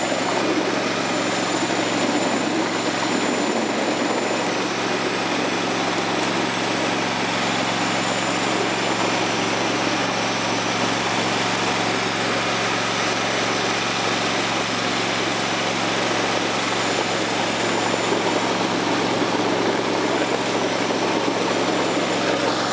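Ride-on miniature railway locomotive running steadily along the track: a constant mechanical drone with a steady low hum that holds its level throughout.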